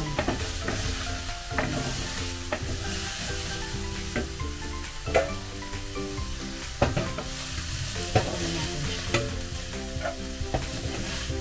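String beans and eggplant sizzling in a little oil in a stainless-steel Saladmaster skillet. A wooden spoon stirs them, knocking and scraping against the pan about once a second.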